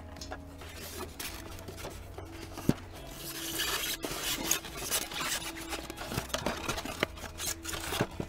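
Polystyrene foam packaging and a plastic toy fire engine rubbing and scraping against each other as the toy is worked free of its tray, with scattered clicks and knocks, the sharpest about a third of the way in. Quiet background music with steady held tones runs underneath.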